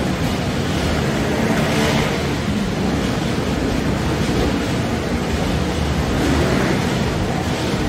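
Several motorcycle engines running together at high revs as the bikes circle inside a steel-mesh globe of death, a loud, dense, continuous engine noise that swells a little about two seconds in and again near the end.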